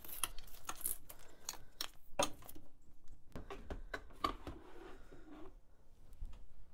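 Handling noise: scattered light clicks and rustling as the black plastic handle, hose and power cord of an unplugged RevAir hair dryer are picked up, moved and set down.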